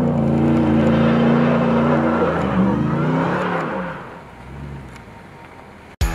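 The supercharged 6.2-litre V8 of a Ram 1500 TRX running hard as the truck spins donuts in dirt. It holds a steady high-rev note, dips and swings in pitch about two and a half seconds in, then fades away from about four seconds in. Rock music cuts in abruptly at the very end.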